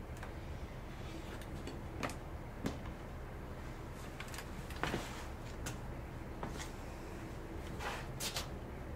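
Several light, sharp clicks and knocks at irregular intervals, about a second apart, over a steady low hum.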